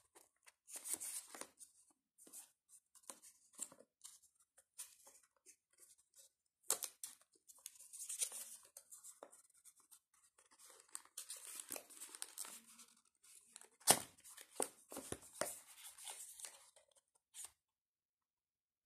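Packaging of a Mi Smart Band 4 box being torn open and handled: scattered rustling and tearing with small clicks, and one sharp snap about 14 seconds in.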